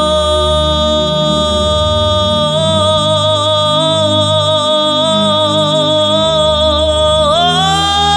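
Worship music: a singer holds one long high note over sustained instrumental chords. The note takes on vibrato after a couple of seconds and slides up to a higher note near the end.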